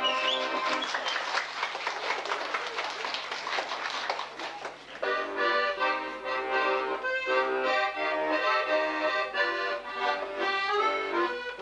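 An audience clapping for about five seconds, then an accordion starting up with a folk tune.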